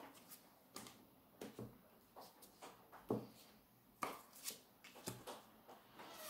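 Quiet handling of tarot cards: soft scattered flicks and light taps as cards are drawn from the deck and laid down on the table.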